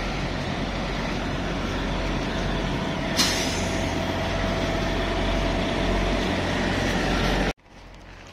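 Diesel semi-trucks idling close by with a steady low hum, and a sharp air-brake hiss about three seconds in that fades away. The sound cuts off suddenly near the end.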